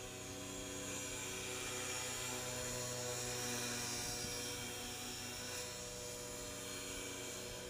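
Align T-Rex 450 Pro flybarless electric RC helicopter in flight, its motor and rotor whine steady in pitch, growing louder toward the middle and easing slightly as it turns past.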